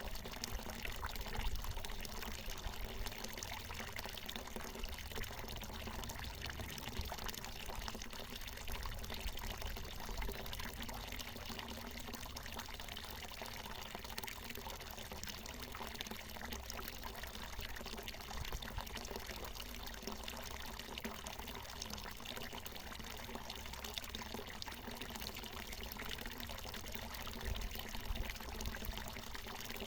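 Water falling steadily from a natural mountain spring, a continuous pouring and splashing.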